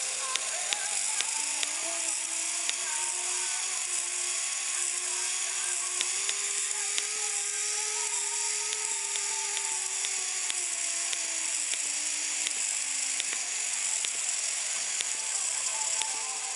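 HXT900 micro servo, modified for continuous rotation, running nonstop: its small motor and plastic gear train whir steadily, the whine slowly rising in pitch over several seconds and then falling back as its speed changes, with faint regular ticks.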